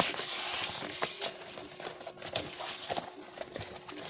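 Cardboard tripod box being handled and opened: a scraping rasp of cardboard through about the first second, then scattered light knocks and taps.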